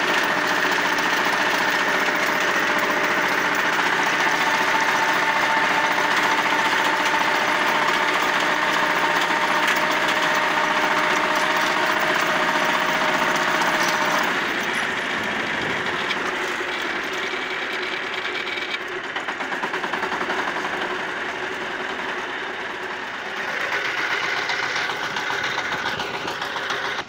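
Shifeng SF-350L tractor's diesel engine running under load with its PTO-driven 1.4 m rotary tiller turning the soil. About halfway through, a steady whine stops and the sound gets quieter and less even.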